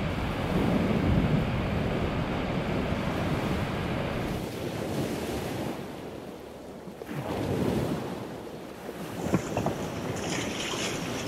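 Wind buffeting the microphone over choppy waves washing around a vehicle stuck in the tide, with a few short knocks near the end.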